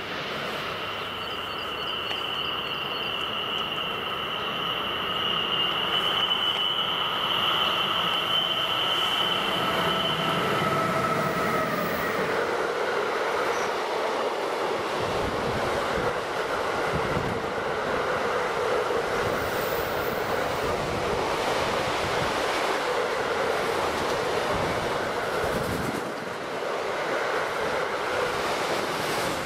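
A freight train of double-deck car-transport wagons passing close at speed. For the first ten seconds a steady high whine sits over the approaching train. Then comes the continuous rumble and rattle of the wagons, with repeated clicks of wheels over the rail joints.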